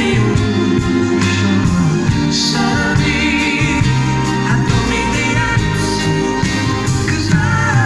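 A live pop band playing a ballad while a singer sings held, wavering notes, recorded from among the audience.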